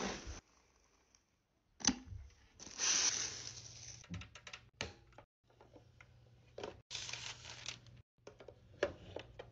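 Unboxing handling noises: cardboard box flaps and packaging rustling in several short bursts, with sharp clicks and taps as the hard plastic shell of a Hello Kitty waffle maker is handled and its lid opened.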